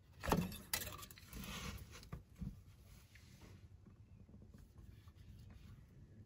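Oil dipstick being pushed back into the engine's filler tube: a few light clicks and knocks in the first couple of seconds as it seats, then only faint background hum.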